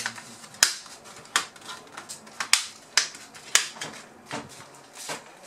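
Plastic snap clips of a Lenovo B50-80 laptop's palmrest clicking into place one after another as it is pressed down onto the base: a string of sharp clicks, roughly one every half second.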